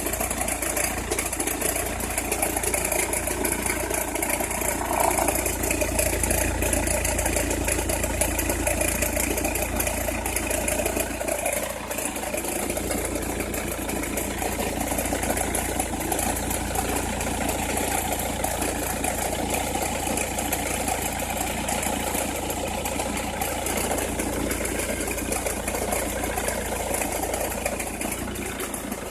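Opel Meriva engine idling cold, with a crackling noise that the owner says comes only when the engine is cold or at very low revs.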